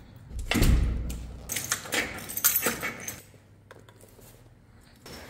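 Keys jangling and an apartment door being handled: a thud with a low rumble about half a second in, then a few sharp latch and lock clicks around two seconds in. Quieter handling follows.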